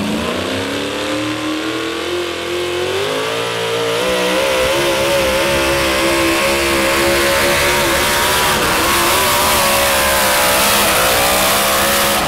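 Supercharged engine of a modified 4x4 pulling truck under full throttle as it drags a weight-transfer sled: the pitch climbs over the first few seconds, then holds high and steady under heavy load, and the sound cuts off suddenly near the end.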